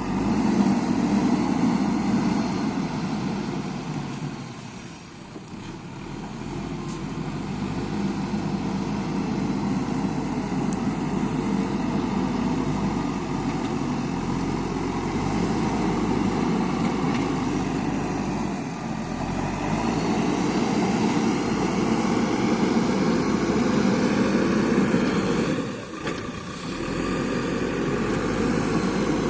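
JCB backhoe loader's diesel engine running under working load, its note rising and falling as it works. It drops away briefly twice, about five seconds in and again near the end.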